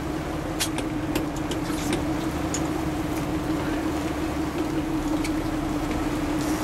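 Fishing boat's engine running steadily with an even low hum, with a few light clicks over it.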